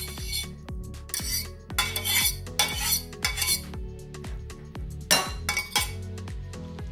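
A metal fork scraping and clinking against a metal pot and a ceramic bowl as cooked instant noodles are scraped out, in a run of short irregular scrapes. Background music with a steady beat plays underneath.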